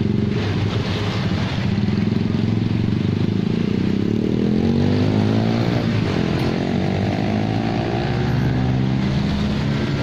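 A motorcycle engine running close by, its pitch rising and then falling again in the middle as it revs or passes, over a steady rushing background.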